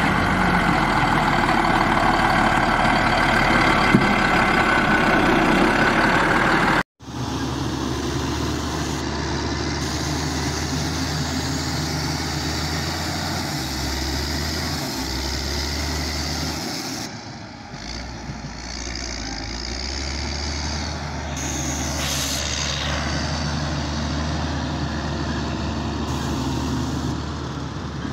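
Motor grader's diesel engine running steadily under load as its blade cuts and spreads dirt. The sound breaks off abruptly about seven seconds in and resumes as a steadier, lower engine drone from a Caterpillar 120K grader.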